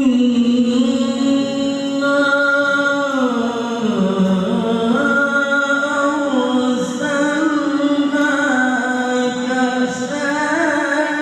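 A male qari reciting the Qur'an in melodic tilawah style, starting abruptly and holding one long unbroken, ornamented phrase whose pitch glides slowly up and down.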